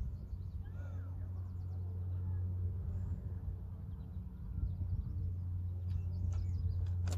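Faint birds chirping over a steady low hum, with a sharp click near the end.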